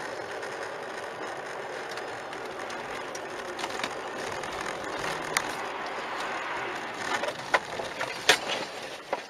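Steady road and wind noise inside a car driving through a truck's snow spray on a snowy highway. Near the end comes a quick run of sharp knocks and bangs as the car crashes.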